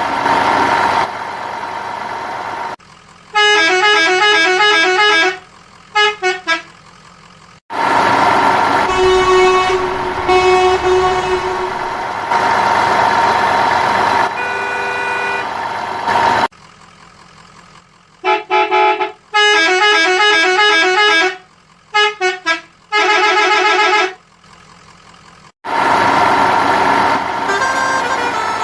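Truck engine sound alternating with quick runs of repeated horn honks.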